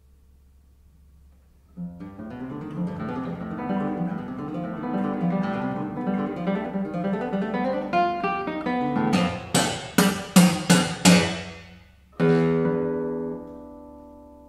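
Solo nylon-string classical guitar: after a brief hush, a busy passage of plucked notes builds in loudness, then a quick series of loud strummed chords, a short break, and a closing chord struck hard and left to ring away.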